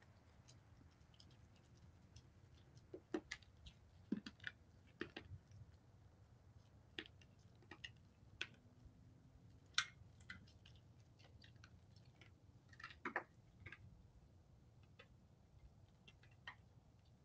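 Faint, irregular clicks and crunches of a white-tailed buck eating from a food bowl, heard over a low steady hum.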